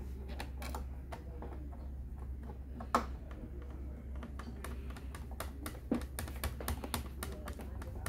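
Irregular small clicks and taps of a hand screwdriver working the screws of a computer's metal stand hinge, with a sharper knock about three seconds in.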